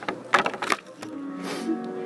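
Piano notes: a few held notes ring out from about halfway through, after a couple of short knocks.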